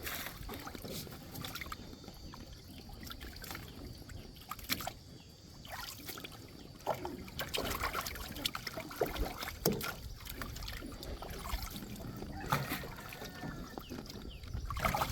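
Water trickling and sloshing, with scattered knocks and clatters that come more often in the second half, as when a fish trap is handled over the side of a small boat.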